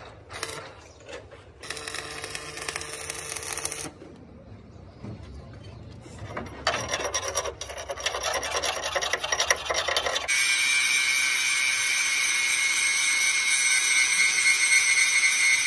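Stick welder's arc crackling on a steel truck frame rail, then a hand wire brush rasping over the fresh weld seam. From about ten seconds in, an angle grinder runs steadily against the frame with a high, even whine.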